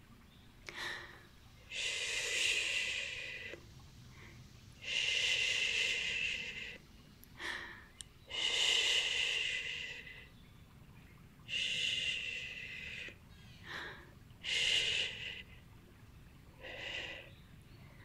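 Close-miked ASMR mouth sounds: a series of long, breathy exhales into the microphone, one every three seconds or so, with shorter soft puffs and faint clicks between them.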